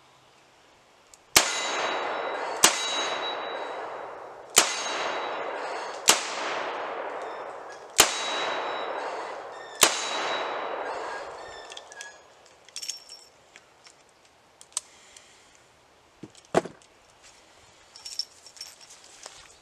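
Six shots from a Smith & Wesson .44 Hand Ejector 3rd Model revolver in .44 Special, fired one at a time about a second and a half to two seconds apart, each crack followed by a long echo that dies away. After the last shot come a few soft clicks and knocks.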